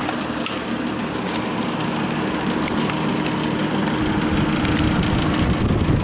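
1963 General Electric Thinline through-the-wall air conditioner running on high: a steady fan and machine noise with a faint hum. About two-thirds of the way through, a low rumble builds as the air blowing from the vent hits the microphone up close.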